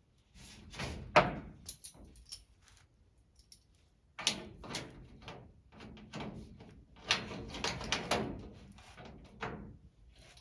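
Plastic rocker panel being handled against a race car's door: a series of knocks, slaps and scraping rubs as the sheet is flipped over and positioned. The sharpest knock comes about a second in.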